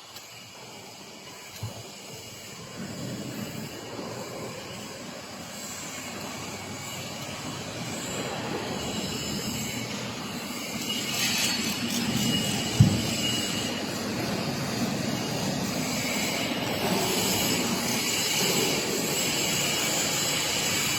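Steady machine or vehicle noise that slowly grows louder, with a single sharp knock about 13 seconds in.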